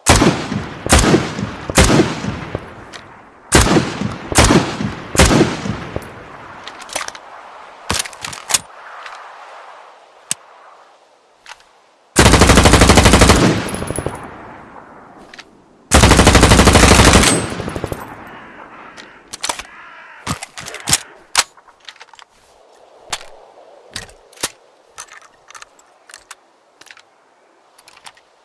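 AR416 assault rifle firing as a sound effect, with single shots and short bursts, each trailing an echo. Midway come two long fully automatic bursts of about a second and a half each, followed by sparser, quieter sharp cracks and clicks.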